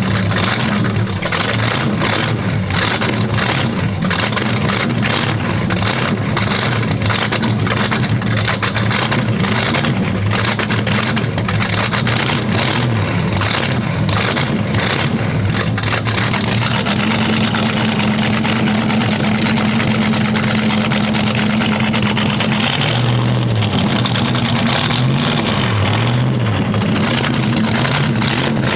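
400 cubic-inch stroker Chevrolet small-block V8 idling through a side exhaust, a steady, loud running sound with no big revs.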